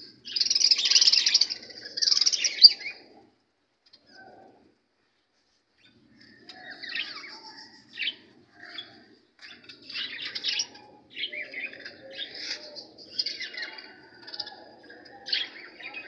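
A flock of budgerigars chattering and chirping in an aviary. The chatter is loud and dense for the first three seconds, stops for a few seconds, then resumes as a busy run of short chirps.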